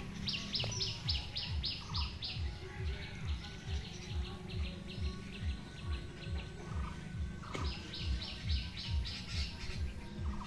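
A songbird singing runs of fast, evenly spaced high chirps, one about a second in and another near the end, with fainter chirping between them. Under it, a steady low thumping pulses about three times a second.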